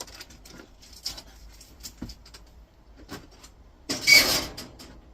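Small clicks and taps of metal and plastic monitor parts being handled on a workbench, then a louder clatter of sheet-metal lasting about half a second, about four seconds in.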